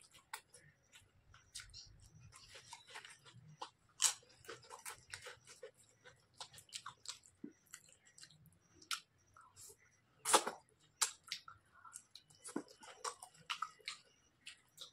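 Chewing and crunching of potato chips eaten with rice, heard close up: a string of irregular crisp crackles and clicks, with one louder crunch about ten seconds in.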